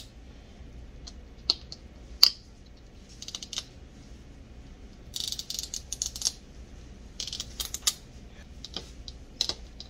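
Plastic Mini Brands capsule ball being opened by hand: scattered sharp clicks, then two crackly stretches of tearing, about five and seven seconds in, as the plastic zip strip is pulled around the shell.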